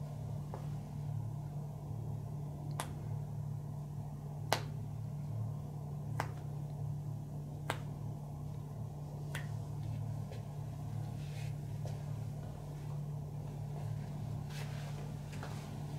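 Sharp single clicks from the hands of a barber's massage, about one every second and a half and fading to softer ones in the second half, over a steady low hum.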